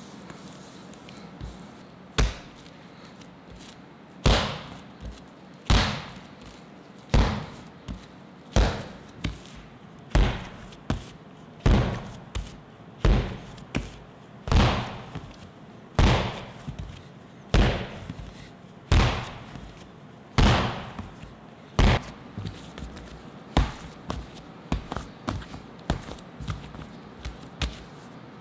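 Whole wheat bread dough being slapped down onto an oiled stainless-steel bench again and again during hand kneading. The thuds start about four seconds in and come about every one and a half seconds, with lighter slaps between, and turn quicker and lighter near the end.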